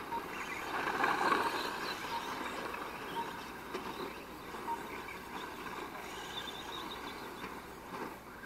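Radio-controlled model cars running around a dirt track, with short single beeps now and then.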